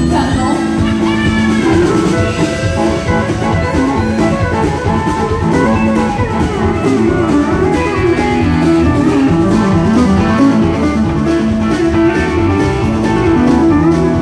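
Live country band playing an instrumental passage with no vocals: guitars with sliding notes over bass and a drum kit, with a pedal steel guitar in the mix.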